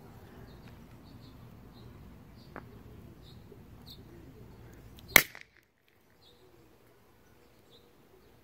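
A single sharp pop about five seconds in from a small handheld novelty firework cylinder.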